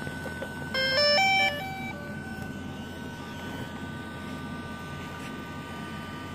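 Camera gimbal's motors giving a steady high-pitched whine, with a short electronic tune of stepped beeps, mostly rising, sounding about a second in.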